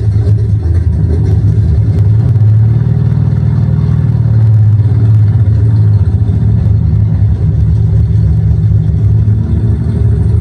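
Simulated F4U Corsair radial piston engine sound played back by an RC-aircraft engine sound module, running steadily with a deep, low rumble that swells slightly about a third of the way in.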